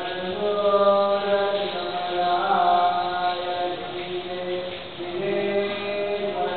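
Chanting sung in long held notes that step up and down in pitch.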